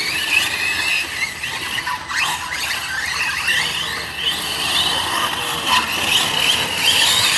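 Several large-scale electric RC off-road trucks racing on dirt, their motors giving overlapping high-pitched whines that rise and fall in pitch as they accelerate and slow through the corners.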